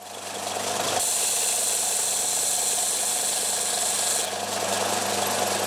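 Bench belt sander running with a steady motor hum, grinding a bevel onto a steel hook cut from an old handsaw blade. The steel on the belt adds a higher rasping grind from about a second in until about four seconds in, while the motor keeps running.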